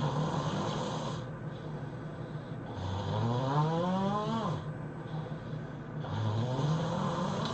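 A man snoring heavily: three long snores about three seconds apart, each a drawn-out tone that rises in pitch, with a breathy hiss.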